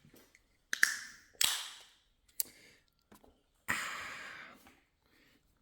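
Beer can cracked open: a sharp click of the tab with a short hiss of escaping gas, a few more clicks, and a second, longer hiss that fades out.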